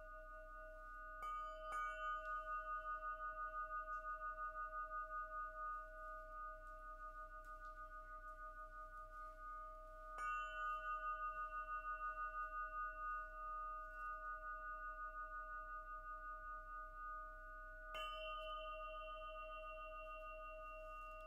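Quartz crystal pyramid, hung by a cord and struck with a quartz wand. Two quick strikes come about a second in, another about ten seconds in and one more near the end. Each leaves a clear ringing tone of several pitches that pulses as it sustains.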